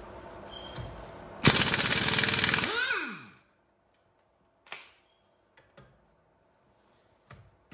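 KS Tools Devil 1600 Nm half-inch pneumatic mini impact wrench. It starts suddenly and hammers rapidly for about a second and a half, then spins down with a falling whine. A few single clicks follow, and it starts again at the very end.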